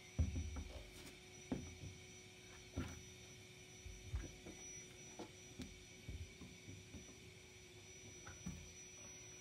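Irregular soft knocks and thuds of hands and climbing shoes on the holds and plywood of a home climbing wall, the first and loudest as she steps up off the mat. A faint steady hum runs underneath.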